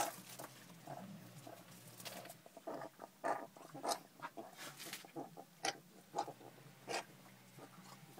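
Bulldog-type puppies making short grunts and squeaks as they scramble over each other, about two irregular little noises a second.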